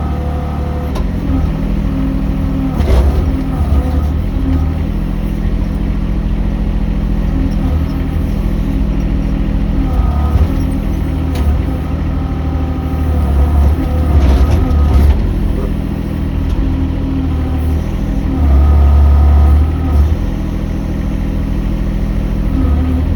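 Mini excavator engine running steadily, its level swelling in several stretches, loudest near the end, as the machine works, with a few sharp knocks.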